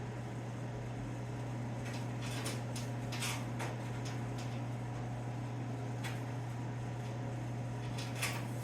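A steady low hum with a few faint, short knocks and scrapes scattered through it.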